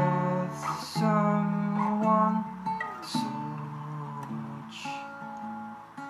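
Steel-string acoustic guitar with a capo, strummed in slow chords that ring between strokes, loudest in the first couple of seconds. A man sings softly over it.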